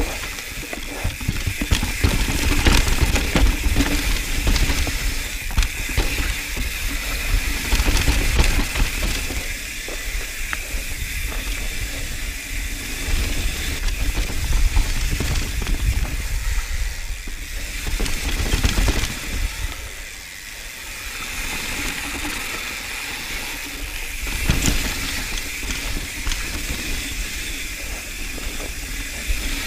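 Mountain bike riding fast down a dirt singletrack, heard from an action camera on the bike or rider: a steady rush of wind and tyre noise with a low rumble and frequent clicks and clatters from the bike over roots and rocks.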